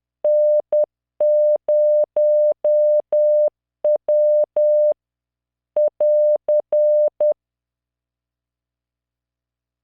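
A computer-generated 600 Hz Morse code tone sent at 10 words per minute, keyed on and off in dots and dashes with a faint click at each start and stop. It sends the closing characters N, 0 and W of a practice group, then a short final sequence, and stops about seven seconds in.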